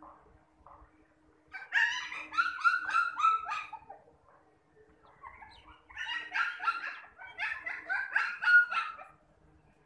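Chow chow puppy yelping in two bouts of quick, high, slightly falling yips and whimpers, several a second, each bout lasting about three seconds.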